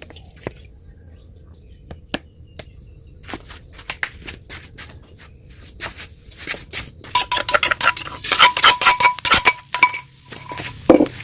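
Metal cookware and utensils clinking against each other. Scattered clinks at first, then a dense run of clattering with a ringing metallic note, starting about seven seconds in and lasting about three seconds.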